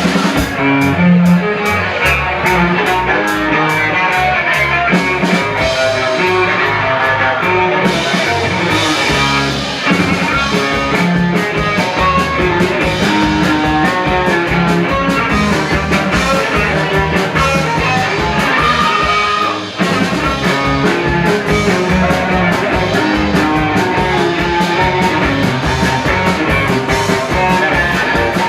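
Loud rock music with a fast, steady drum beat under plucked and bowed string instruments, with a short break about twenty seconds in.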